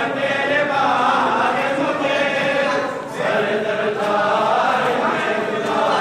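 A crowd of men chanting a mourning lament (nauha) together in unison. The voices run in long sung phrases, with a short break about halfway through.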